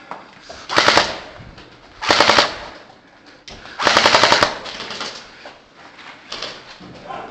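Gel blaster firing in three short fully automatic bursts, a rapid rattle of shots each time, the last burst the longest.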